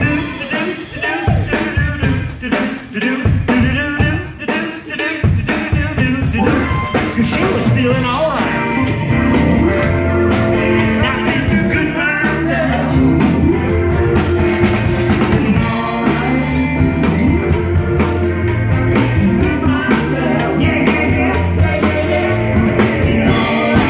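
Live rock band playing: drum kit, keyboard and a singing voice, loud and continuous.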